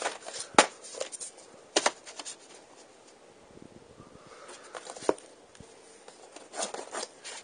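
VHS tapes clacking and knocking as they are handled, shuffled and set down: a few sharp clicks spread apart, with a quicker cluster of knocks near the end, over soft handling rustle.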